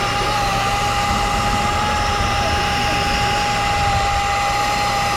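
A steady motor drone with a constant high whine, the hum unchanging throughout.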